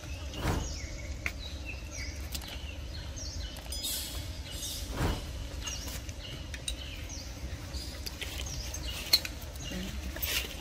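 Small forest birds chirping, many short falling calls one after another, over a steady low rumble. Two soft thumps come about half a second in and about halfway through.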